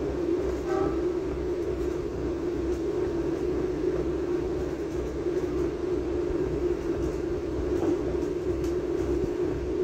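Commuter train running at speed, heard from inside the carriage: a steady hum over an uneven low rumble.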